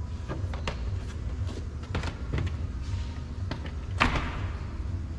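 Plastic door trim panel being pried off and handled: a scatter of short clicks and knocks, with a louder snap about four seconds in, over a steady low hum.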